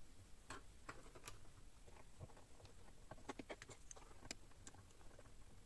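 Faint, scattered clicks and taps of small metal parts being handled as a walking foot is fitted onto the presser bar of a Janome Memory Craft 6700P sewing machine, with a quicker run of clicks about three seconds in.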